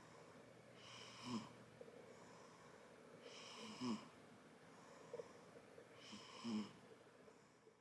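Six-week-old baby snoring in her sleep: three snoring breaths about two and a half seconds apart, each carrying a short pitched rasp, with a faint puff of breath between the second and third.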